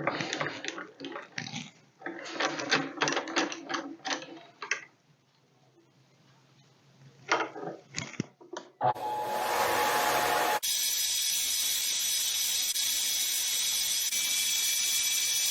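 Benchtop mini lathe turning polycarbonate stock. About halfway through, after some irregular clatter and a few knocks, it settles into a loud, steady run: a high motor-and-gear whine over a hiss.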